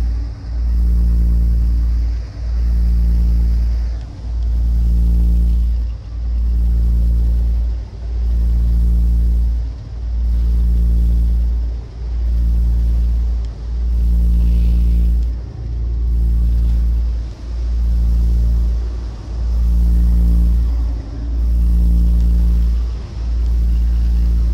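Deep marine engine drone, swelling and dipping evenly about every two seconds as the crew boat lies alongside the barge.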